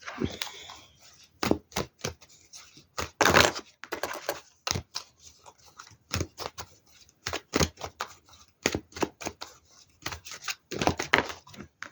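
A tarot deck shuffled by hand: a long, irregular run of sharp card snaps and taps, several to a second.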